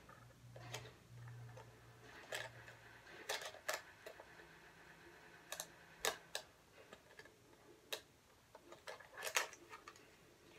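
Scattered small plastic clicks and taps, about ten at irregular intervals, from fitting a clip-on close-up lens onto an instant camera's lens and handling the camera.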